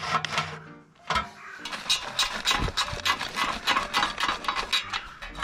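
Ratchet wrench clicking in a quick, even run as the bolts holding a small engine's sheet-metal cooling shroud are undone, with light background music underneath.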